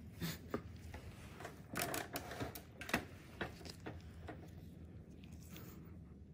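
Faint, irregular clicks and light taps, a few a second, dying away in the last second or two.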